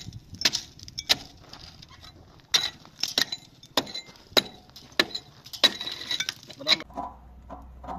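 Steel mason's trowel tapping and scraping against concrete blocks while mortar is worked at the joints. About a dozen sharp metallic clinks come at irregular intervals of roughly half a second, some ringing briefly, and stop about a second before the end.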